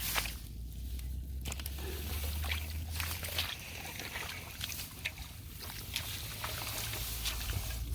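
Shallow water sloshing and splashing, with many small scattered splashes and ticks. A low rumble sits under it for the first few seconds and comes back near the end.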